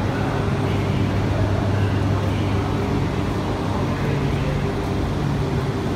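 Steady low hum from a standing E3 series shinkansen set at a station platform, with a few held low tones, under murmuring voices on the platform.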